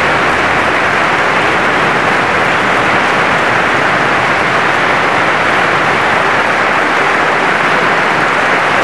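Congregation applauding, a dense, steady clapping that holds at one level throughout.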